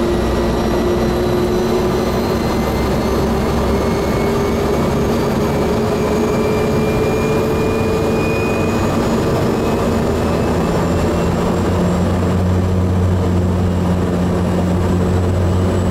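Cessna Grand Caravan's PT6A turboprop engine and propeller running during a propeller governor check, heard from inside the cockpit. The whine rises slowly in pitch over the first half or more, then a deeper tone takes over about two-thirds of the way through as the governor holds the propeller RPM.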